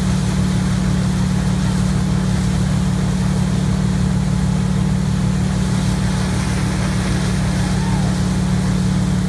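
Correct Craft ski boat's inboard engine running steadily at towing speed, a constant low drone, with the rush of its wake and spray behind the boat.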